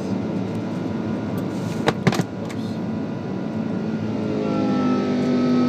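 Steady roar of an Airbus A330's jet engines and airflow in the cabin during the climb after takeoff. A few sharp clicks come about two seconds in, and from about four seconds a steady hum of several tones comes in as the sound grows louder.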